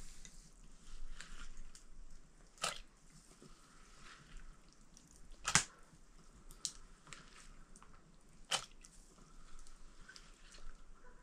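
Hand sorting beans and chopped vegetables on a steel plate: quiet rustling with a few sharp light clicks, the loudest about halfway through.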